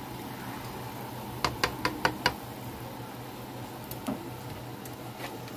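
A spatula knocking against the rim of a large skillet, about five quick taps in under a second, around a second and a half in, over a steady low hum.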